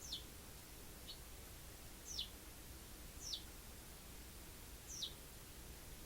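A pet Eurasian tree sparrow calling: a string of short, high chirps that each slide down in pitch, about one a second, with a couple of shorter, softer chirps between them.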